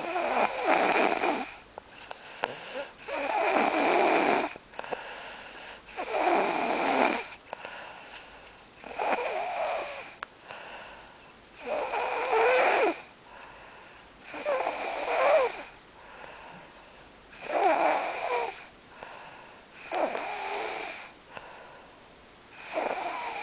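A person snoring in sleep, a snore about every three seconds, each lasting about a second.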